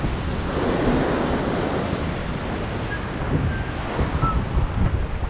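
Ocean surf churning and breaking against the pier, with wind rumbling on the microphone.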